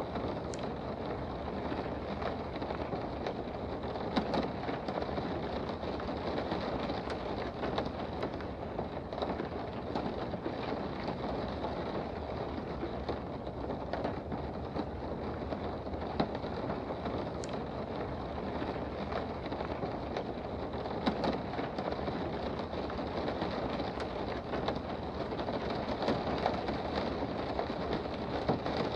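Steady rain heard from indoors: an even hiss with scattered sharper taps of single drops.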